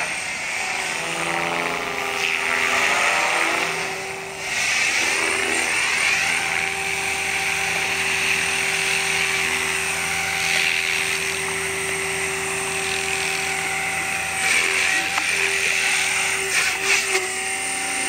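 Mikado Logo 480 electric RC helicopter in flight: steady motor and rotor whine with rushing blade noise, which dips about four seconds in and swells sharply a few times near the end as it manoeuvres.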